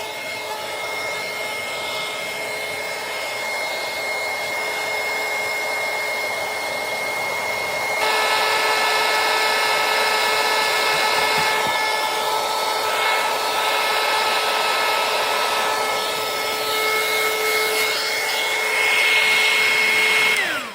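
A 300 W hot air heat gun runs with a steady fan whine, blowing hot air to shrink the tubing on a butt connector. It gets louder about eight seconds in. Near the end it is switched off, and its whine falls away as the fan spins down.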